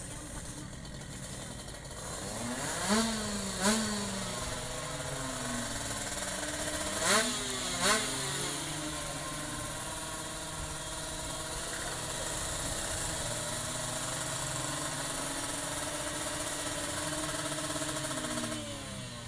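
Tuned two-stroke sport motorcycle engines revving hard in two pairs of sharp blips, rising and falling in pitch. A sustained engine note follows and drops away near the end.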